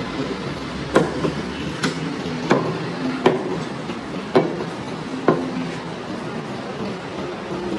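Butcher's meat cleaver chopping a goat carcass on a wooden chopping block: six heavy strikes, roughly a second apart, in the first five and a half seconds.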